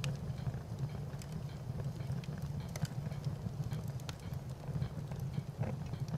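Fire burning, with scattered sharp crackles and pops over a steady low rumble.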